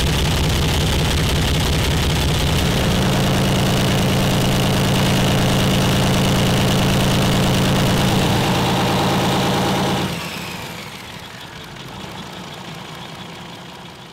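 Diesel engine of a locomotive running loudly through open exhaust stacks with no pipes fitted, stepping up in speed about three seconds in. About ten seconds in it cuts off and winds down, leaving a fading, falling whine.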